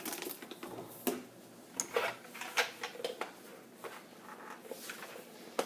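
Scattered light clicks and knocks of a Vicks Coolmist humidifier being handled as its water tank is opened.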